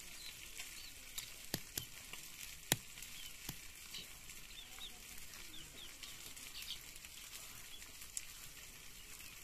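Faint scraping and rubbing of a stone muller grinding wet spice paste on a flat grinding stone, with a few sharp knocks of stone on stone in the first few seconds. Birds chirp repeatedly in the background.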